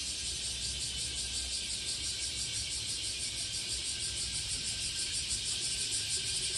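Chorus of summer cicadas: a dense, high buzz that pulses steadily throughout.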